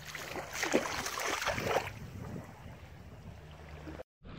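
Water splashing in bursts for over a second around a large white sturgeon held in shallow river water, over a steady low hum.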